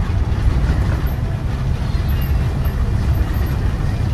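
Steady low rumble of a 2017 Ford F550 shuttle bus under way: engine and road noise heard from inside the passenger cabin.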